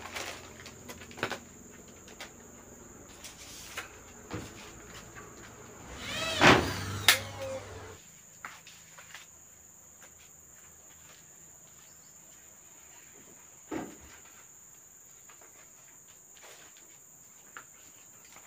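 Insects, likely crickets, making a steady high drone throughout. Over it come scattered clicks and knocks, a loud squeaking scrape about six to seven seconds in, and a low hum that cuts off about eight seconds in.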